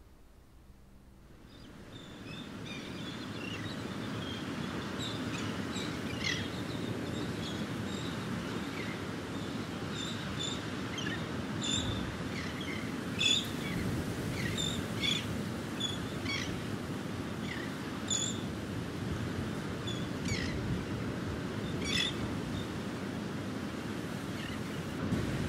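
Outdoor field recording fading in a couple of seconds in: many short bird chirps and calls scattered over a steady low background rush.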